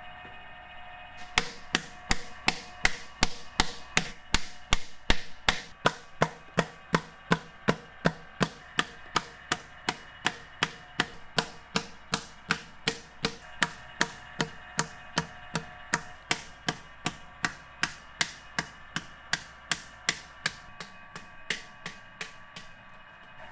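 Wooden paddle beating the clay wall of a large onggi jar: steady strikes, about three a second, that start about a second in and stop shortly before the end, the first few the loudest.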